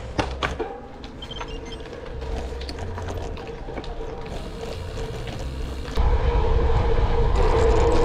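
Cannondale Topstone Carbon Lefty gravel bike riding on Panaracer GravelKing SS 27.5×1.90 tyres. A few sharp clicks at the start, then steady tyre rolling noise with a constant hum. About six seconds in it jumps to a much louder, steady rumble of tyre and wind noise at road speed.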